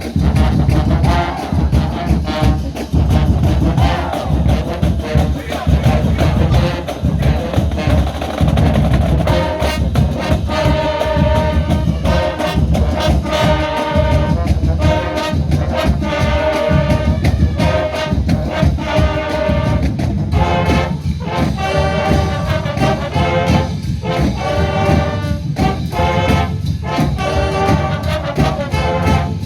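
College marching band playing, with a steady drum beat throughout and brass (trumpets and trombones) coming in with loud chords about a third of the way in.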